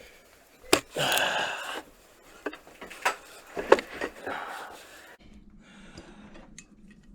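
A man breathing hard while he works, two heavy breaths, with a few sharp clicks and knocks of metal door-handle hardware being handled. About five seconds in the sound drops away to a faint steady hum.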